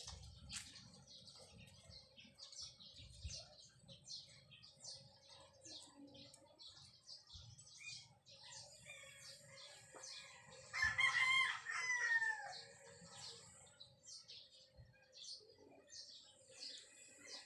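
A rooster crows once, a little under two seconds long, about eleven seconds in, its call falling in pitch at the end. Small birds chirp throughout.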